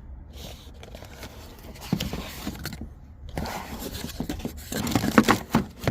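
Packaging of new VANOS solenoids being handled and opened: scraping and crinkling rustles with a few clicks, louder and busier in the second half.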